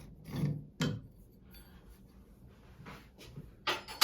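Clicks and knocks of metal shower-valve parts being handled as a Delta shower cartridge assembly is unscrewed and taken apart, the loudest knocks near the end.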